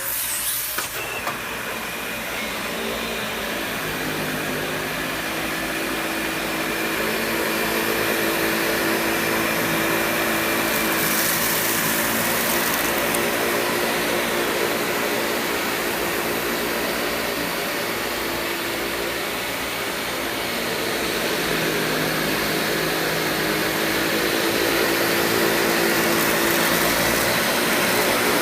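Dyson DC65 Animal upright vacuum switched on and running steadily: a motor whine over a rushing airflow hiss, with a brighter hiss for a couple of seconds about 11 seconds in, during a pet-hair and sand pickup test.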